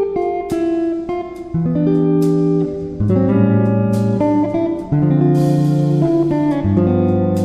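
Background music led by plucked guitar, single notes and chords changing every second or so.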